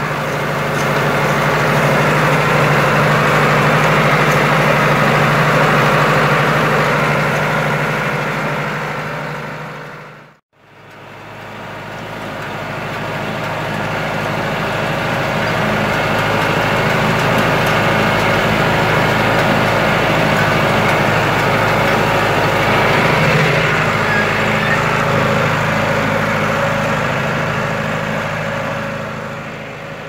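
Farm tractor engine running steadily while it pulls a hay tedder and then a hay rake through the field. The sound fades out and back in about a third of the way through.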